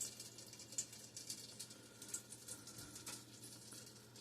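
Faint sizzling of butter and oil heating in a Pampered Chef Pop and Stir popcorn maker, irregular little crackles several times a second; the pan is heating up and the kernels have not begun to pop.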